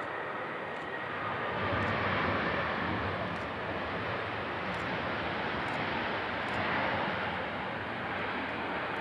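Airbus A321-231's IAE V2500 jet engines running as the airliner rolls out along the runway after landing: a steady rushing noise with a faint whine in it.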